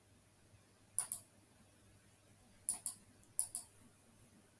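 Computer mouse clicking three times, each click a quick press-and-release double tick, about a second in and then twice close together near three seconds.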